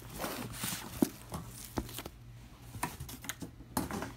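A shrink-wrapped vinyl LP box set being handled: the plastic wrap crinkles, with scattered sharp clicks and knocks as the box is moved.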